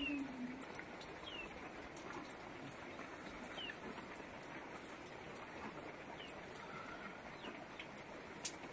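Faint bird chirps over quiet outdoor background noise: short, high, falling notes every second or two. A sharp click comes near the end.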